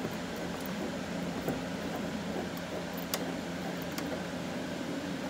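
Steady low mechanical hum, with a few light clicks from hands fitting a mounting bolt through a plastic wide-body over-fender at the wheel arch.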